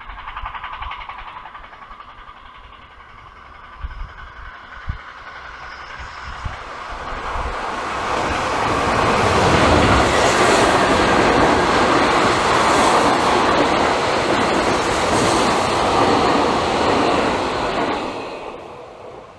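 A Seibu Railway electric train passing close by. Its wheel and running noise builds up over the first few seconds, stays loud for about ten seconds, then dies away quickly near the end.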